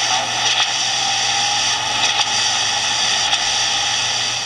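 Cement mixer truck sound effect played from a sound book's built-in speaker: a steady mechanical engine noise that stops near the end.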